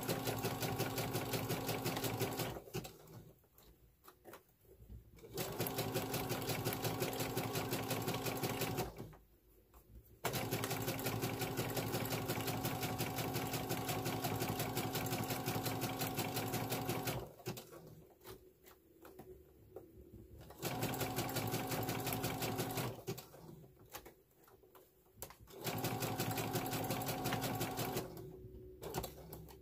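Brother sewing machine running a zigzag stitch in five starts and stops, the longest run about seven seconds, with short pauses between as the work is guided around the edge.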